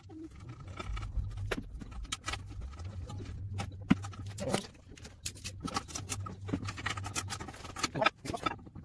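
Brake pads being handled and fitted into a car's rear disc-brake caliper carrier: a run of irregular metal clicks and taps, over a steady low hum.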